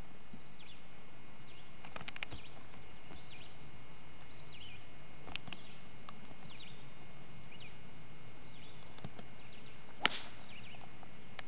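A golf club striking a teed-up ball on a tee shot: one sharp crack about ten seconds in, over steady tape hiss with faint bird chirps.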